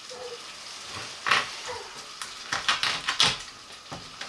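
Knife cutting through a salmon frame onto a wooden chopping board: a series of sharp knocks, more of them in the second half, over a faint sizzle of butter in a frying pan.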